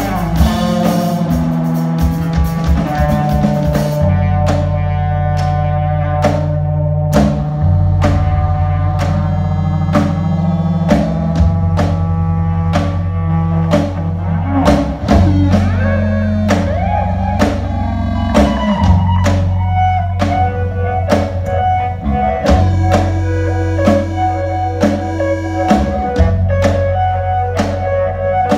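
Live instrumental band playing: an electric bass holding low notes, a hollow-body electric guitar picking lines, and a drum kit keeping a steady beat. A bright high wash from the drums drops away about four seconds in.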